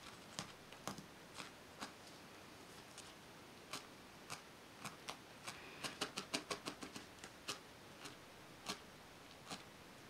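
Felting needle stabbing wool into a foam felting pad: a faint run of sharp, irregular clicks, a few a second, coming quicker for a stretch about six seconds in.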